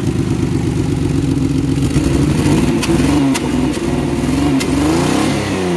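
Turbocharged Mitsubishi FTO V6 running, steady at first, then revved up and down several times from about two seconds in, with a few sharp cracks among the revs.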